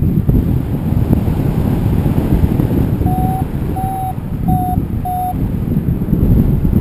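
Wind buffeting the microphone in flight as a rumbling rush, with four short, evenly pitched beeps from a paragliding variometer a little past halfway, the signal of rising air.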